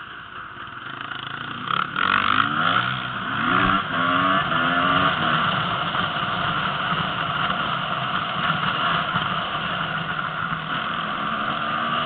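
Enduro motorcycle engine pulling away, its pitch rising several times in quick succession about two seconds in, then running steadily at speed.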